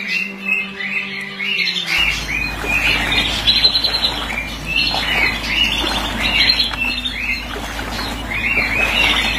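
Many birds squawking and chirping in short, repeated arched calls, overlapping throughout. A steady low rumble comes in about two seconds in.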